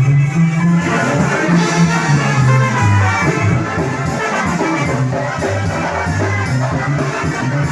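Music with brass instruments over a bass line that moves from note to note.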